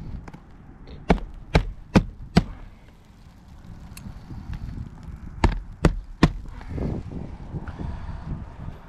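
Roofing hatchet driving 1¼-inch roofing nails through asphalt shingles: four quick blows about half a second apart, then three more a few seconds later.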